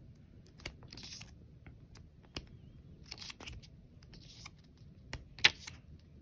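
Printed merch items and their packaging being handled: several short paper rustles and light clicks, the loudest click about five and a half seconds in.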